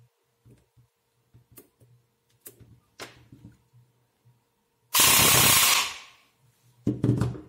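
Airsoft AEG gearbox with a Big Dragon M160 high-speed motor, run on an 11.1 V LiPo, firing on full auto: one burst of about a second starting about five seconds in, then a shorter burst near the end. Before it, light clicks of the battery connector being plugged in and the gearbox being handled.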